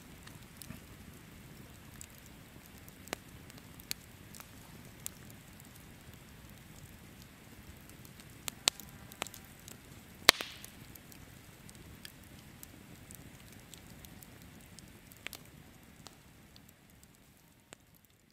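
Wood campfire crackling, with scattered sharp pops, the loudest about ten seconds in. It fades out near the end.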